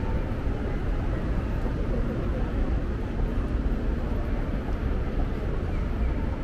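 Busy city street ambience: a steady low rumble of traffic with an indistinct murmur of passers-by.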